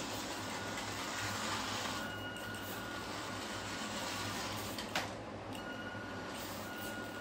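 Small electric drive motor and gears of a 3D-printed toy RC car whining thinly as it drives on hard plastic wheels across a laminate floor. The whine comes in about two seconds in, drops out briefly, and there is a single click about five seconds in.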